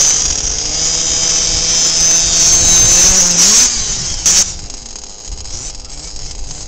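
HPI Baja 5T 1/5-scale RC truck's small two-stroke petrol engine running at a steady high pitch. The pitch wavers about three seconds in as the truck goes over a jump, and a short sharp knock a little after four seconds marks the landing. After that the engine sounds fainter.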